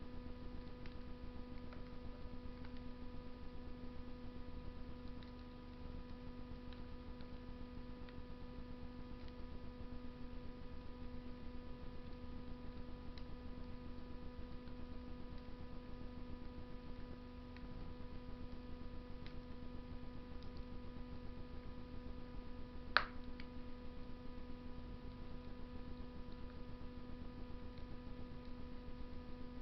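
Wood fire burning in a Russian masonry stove: faint scattered crackles and one sharp pop of burning wood about three-quarters of the way through. A steady hum runs underneath.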